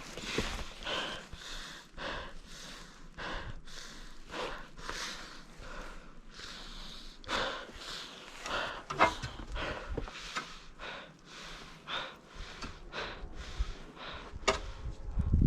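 Snow being shoveled by hand: a series of irregular scraping, crunching strokes of a shovel through snow.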